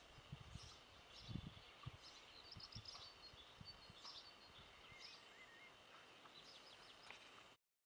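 Faint outdoor ambience with small birds chirping and twittering, and a few low thumps in the first two seconds. The sound cuts off abruptly near the end.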